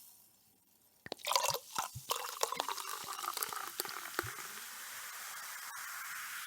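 Champagne poured into a glass. About a second in comes a burst of splashing and glugging with crackling bubbles, which settles into a steady fizz.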